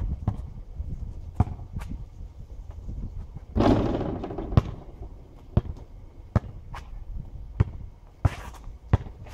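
A basketball bouncing on an asphalt court, with sneaker steps: sharp, irregular thuds. About three and a half seconds in, a shot hits the backboard and rim with a loud rattling clang that lasts about a second.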